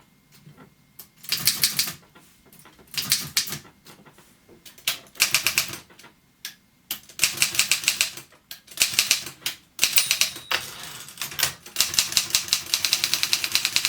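Continental manual typewriter being typed on: short runs of rapid, sharp keystrokes with brief pauses between them, and a longer continuous run near the end.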